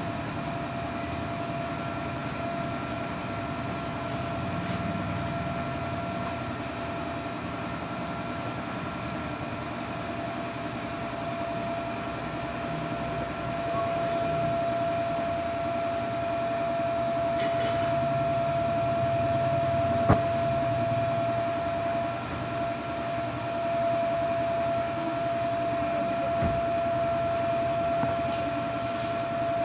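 Steady mechanical hum with a constant high whine and a low rumble, and a single click about twenty seconds in.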